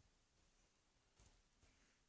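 Near silence: faint room tone, with two faint clicks a little past halfway.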